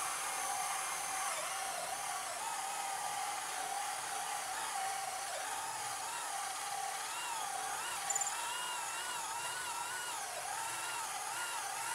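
Kobalt XTR brushless hammer drill in drill mode on speed 2, driving a 3-inch hole saw through a wooden board under load. Its motor whine wavers up and down in pitch as the saw bites and eases, with a brief click about eight seconds in.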